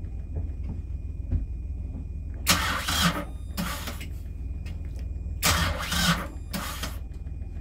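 Catamaran's port engine cranked by its starter in short bursts, about two and a half and five and a half seconds in, without catching: it fails to start. A steady low engine rumble runs underneath.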